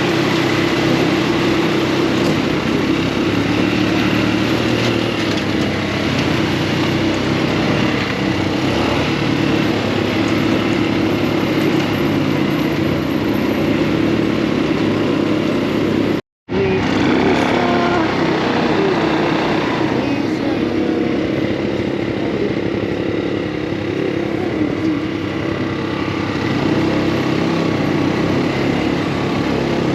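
Off-road buggy engine running steadily on the move. The sound cuts out completely for a moment about halfway through.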